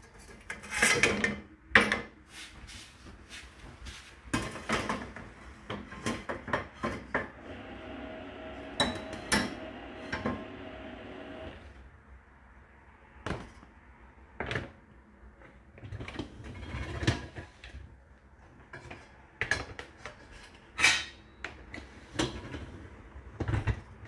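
Dishes and a stainless steel pan clattering and knocking against the wire racks of a loaded dishwasher as they are handled: a long series of sharp knocks and clinks, with a steady hum for a few seconds midway.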